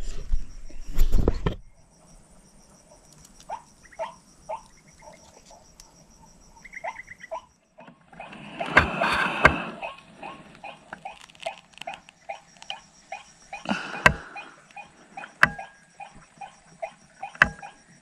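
White-breasted waterhens calling: short croaking notes repeated in quick, uneven series. A rustle of handling comes about nine seconds in, and there are a few sharp clicks and a faint steady high whine.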